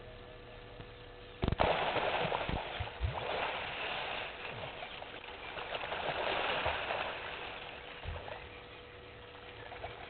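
Hippos splashing heavily in the water as they wrestle in play. The splashing starts suddenly about a second and a half in, with a few heavy thuds of bodies in the water, goes on for several seconds, and dies away near the end.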